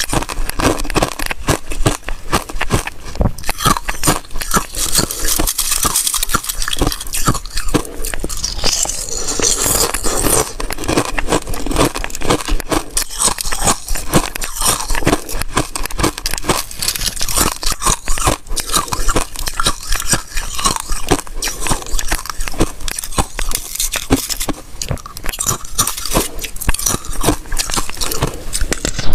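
Thin, brittle ice being bitten and chewed, a dense and continuous crackling crunch of breaking shards.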